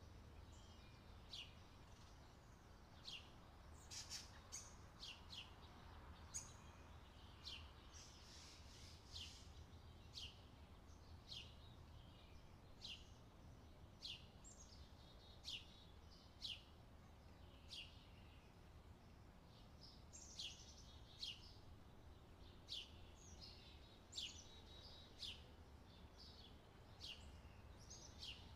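Faint, repeated short chirps from a small bird, each a quick falling note, about one every second, over a low steady hum.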